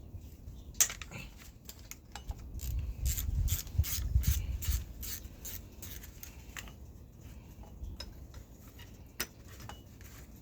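Hand-tool work on an engine: a run of quick, evenly spaced metal clicks from about two to six seconds in, with a few single clicks and knocks before and after.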